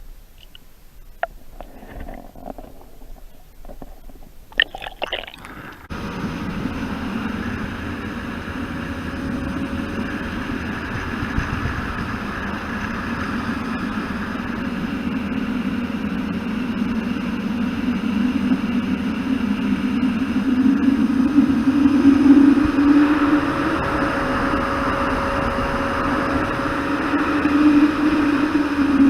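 Boat's outboard motor running under way, a steady drone whose pitch slowly climbs, with wind and water noise; it cuts in suddenly about six seconds in, after a few faint clicks.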